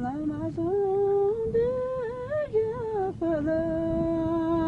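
A lone voice singing a slow wordless tune, sliding between notes, then holding one long steady note from about three and a half seconds in.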